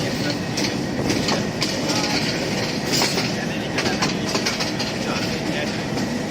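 Train running along the track, its wheels clicking irregularly over rail joints against a steady rolling rumble.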